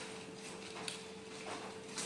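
Faint eating-by-hand noises: fingers working rice and toppings on a banana leaf, with a few soft light clicks, over a steady low hum.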